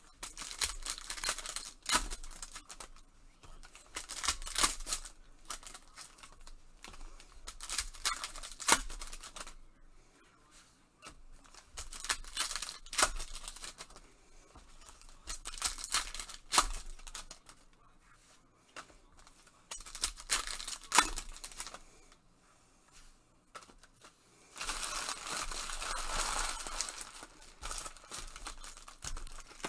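Trading card pack wrappers of 2020 Panini Prizm football being torn open and crinkled by hand, in about seven bursts a few seconds apart, with sharp clicks; the last burst is longer and more even.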